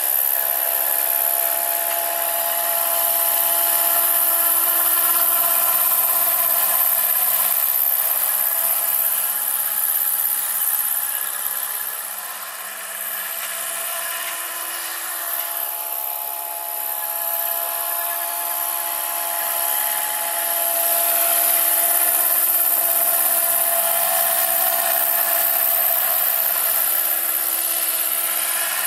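Electric-powered NH-90 scale model helicopter in flight: a steady high whine from its electric motor and 1.85 m rotor, several held tones with a strong hiss on top. It eases off slightly about halfway through, then comes back.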